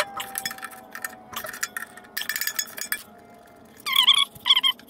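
Ratchet wrench clicking in short irregular runs as motor mount bolts are backed out. Near the end come a few short, wavering high squeaks.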